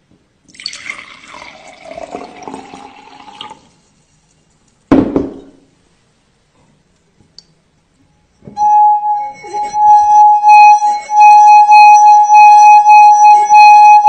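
Water poured from a glass carafe into a stemmed wine glass, then a single knock. About eight and a half seconds in, a fingertip rubbed around the rim makes the partly filled glass sing one steady ringing tone that wavers slightly in loudness.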